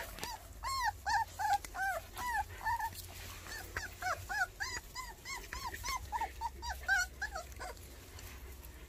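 White baekgu puppies whimpering: a run of short, high squeaks, each rising and falling in pitch, about three a second, that stop about eight seconds in.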